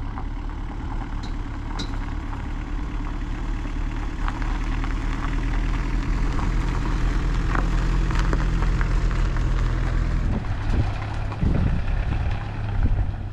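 Small van's engine running as it tows a boat trailer across a gravel lot, growing louder as it approaches, with uneven rattling noise near the end as it passes close.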